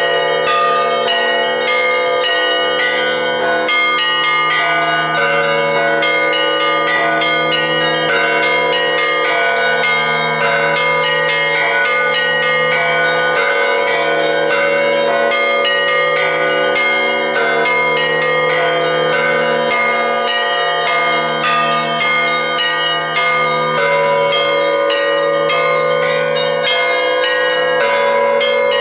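Russian Orthodox church bells ringing continuously: a fast pattern of many small bells struck over the steady hum of the larger bells.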